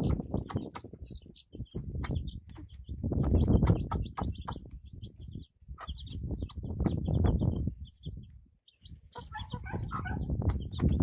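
A brood of young chicks peeping in quick runs of high cheeps around their mother hen, with the hen clucking about nine seconds in. A loud low rumble swells and fades several times underneath.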